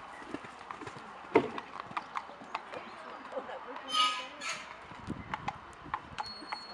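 Hoofbeats of a cantering horse on a sand arena surface, an uneven run of dull knocks, with one much louder thump about a second and a half in. A short voice-like call sounds about four seconds in.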